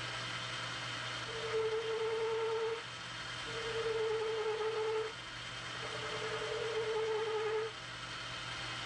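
South Bend lathe running with a steady motor hum while a carbide insert cuts a chamfer on the end of the workpiece. The cut is taken three times, each lasting about a second and a half and carrying a steady mid-pitched tone.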